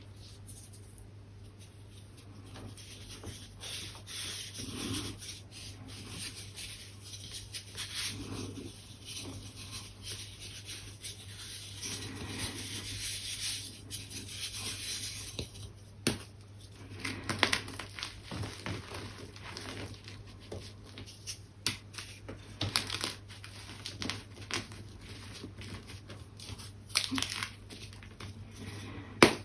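Gym chalk being rubbed and crumbled by hand, a gritty scraping at first. From about halfway through come many sharp, crisp crunches as pieces are crushed. Breathing through a face mask is heard at times.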